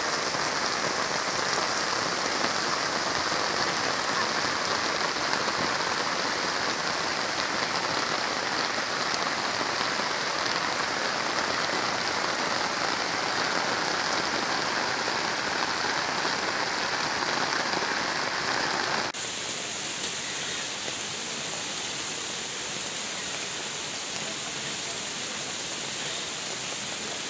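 Steady hiss of heavy monsoon rain over flowing muddy floodwater. About two-thirds of the way through it drops abruptly to a quieter, thinner hiss.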